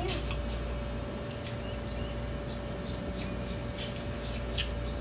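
A spoon stirring mashed avocado in a bowl, with a few light, scattered clicks of the spoon against the bowl, over a steady faint hum.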